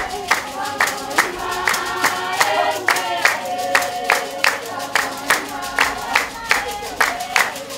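A group of voices singing a traditional San dance song, over sharp, steady hand-clapping at a little more than two claps a second.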